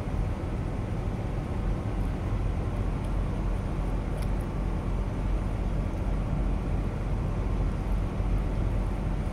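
Steady low rumble of an idling engine, most likely the semi truck's diesel, with an even low hum and no changes in pitch.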